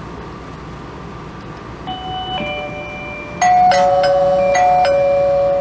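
Electronic two-tone ding-dong chime of a smart doorbell system ringing. A soft ding-dong comes about two seconds in, then a much louder ding-dong repeats over and over from about three and a half seconds in.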